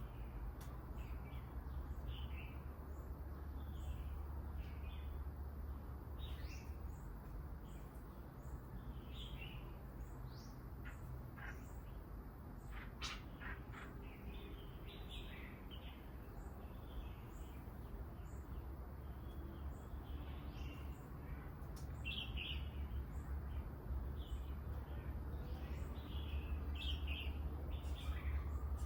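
Small birds chirping and calling, many short high chirps scattered throughout, over a steady low background rumble.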